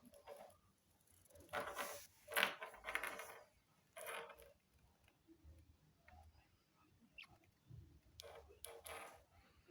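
A budgerigar pecking at and pushing a walnut, heard as several short bursts of rattling and scraping with faint ticks between them.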